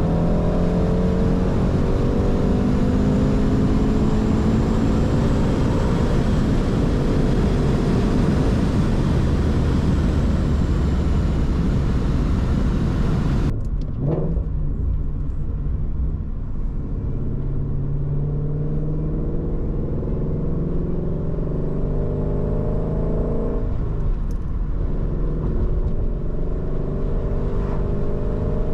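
2019 Shelby GT350's 5.2-litre flat-plane-crank V8 running under way, its pitch easing down over the first half and climbing again later as the car gathers speed. Heavy wind and road hiss drops away suddenly about halfway through.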